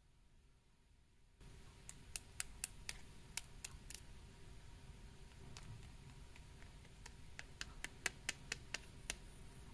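Two hard, dry snack strips tapped against each other, giving quick runs of sharp clicks: one about two seconds in, another near the end.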